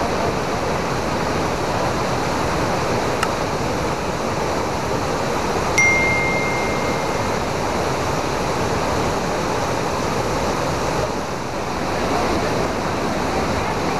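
Steady rush of a wide waterfall pouring over rock ledges, the flow heavy because the dam gates upstream are open. About six seconds in, a click and a single ringing chime sound effect lasting about a second and a half.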